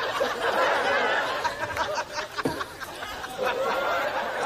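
Studio audience laughing, a loud swell of many voices that eases off about halfway through and rises again near the end.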